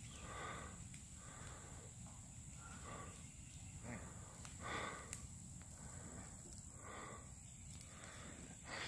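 Breathing close to the phone's microphone, a soft breath every second or two, over a low steady rumble.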